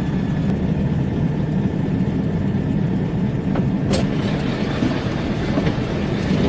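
Scania 144L truck's 14-litre V8 diesel running steadily at low revs, heard from inside the cab as the truck creeps along. A sharp click about four seconds in.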